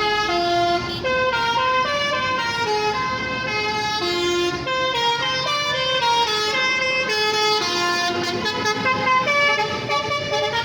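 Indonesian bus telolet horn, a multi-tone air horn playing a tune: loud held notes stepping up and down every fraction of a second, without a break.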